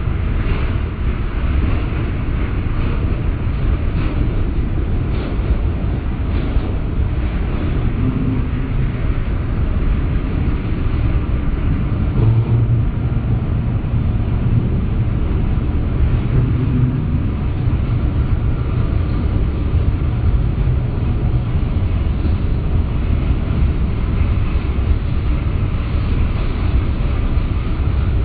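Freight cars of a CSX train rolling past, a steady deep rumble and clatter of steel wheels on rail, slowed to 30% speed so it sounds low and drawn out. A bulkhead centerbeam flatcar in the train has a faulty wheelset making a loud noise and giving off light smoke.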